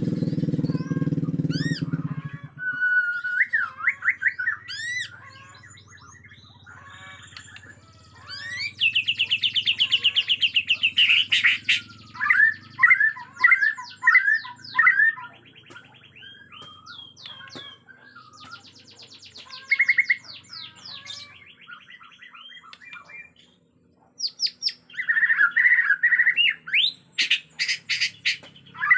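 White-rumped shama (Bornean murai batu) singing hard and fired-up: a varied song of fast repeated trills, rising whistles and chattering phrases, in bursts with short pauses. A low rumble sounds under the song for the first two seconds.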